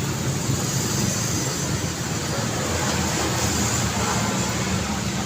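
Road traffic noise: a steady, continuous rumble of vehicles passing on a busy road, with no single vehicle standing out.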